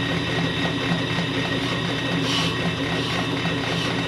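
Ammco brake lathe running steadily, its motor and drive humming as it spins a brake rotor. A short scrape a little over two seconds in comes as the cutter touches the rotor to make the scratch-test mark that checks whether the rotor runs true.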